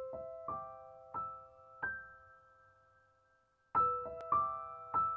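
Quiet piano music: single notes struck one at a time and left to ring out, a short phrase that ends on a long held note and starts over near the end.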